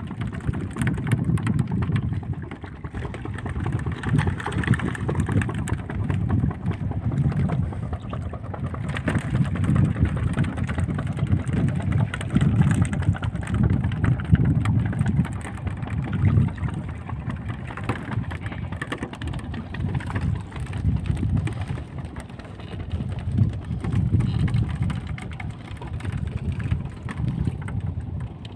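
Low rumble of wind buffeting the microphone and sea water moving against a small wooden boat's hull, rising and falling unevenly.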